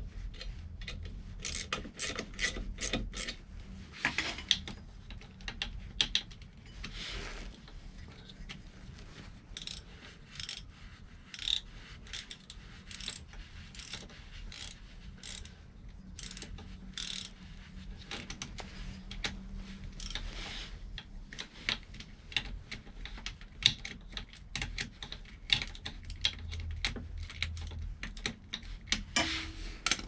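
Hand tools and metal parts being worked on a scooter's rear wheel assembly: irregular sharp clicks, scrapes and rubbing, with no steady rhythm.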